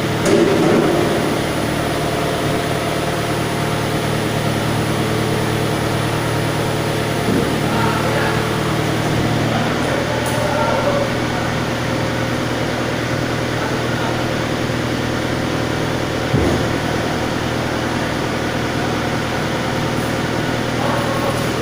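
A heavy engine running steadily at low revs, with a couple of short knocks, one about seven seconds in and one about sixteen seconds in.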